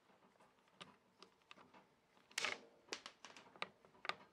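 Faint scattered clicks and light metallic knocks from the lathe's gearing and parts being handled, with one louder clatter about two and a half seconds in.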